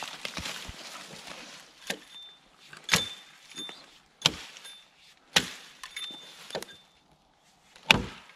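Brushy branches rustling as a fallen limb is shifted. Then an axe chops into the wood: six sharp blows, about one a second, the last the loudest.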